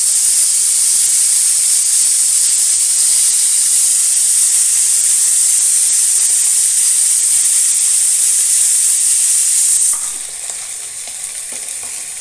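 Ghee sizzling in a hot pan, heated to brown a whole marinated chicken: a steady hiss that drops noticeably in level about ten seconds in.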